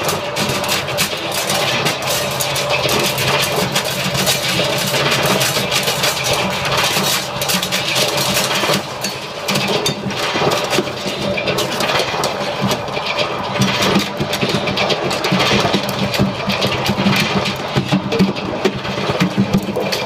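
Live noise music: a dense, continuous wall of harsh electronic noise with a drum kit played in rapid, clattering hits throughout.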